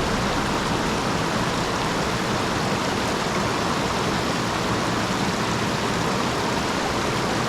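Steady rush of flowing stream water, an even hiss that holds at one level throughout.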